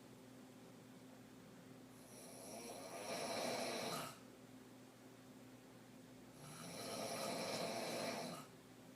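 A woman snoring deeply from the throat with her mouth open, lying asleep on her back. Two long snores about four and a half seconds apart, each lasting about two seconds.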